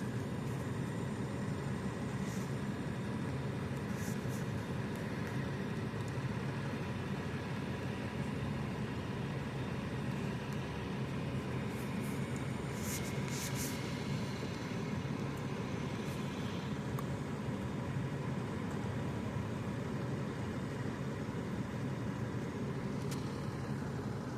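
Steady low drone of construction machinery running without let-up, with a few faint light clicks about halfway through.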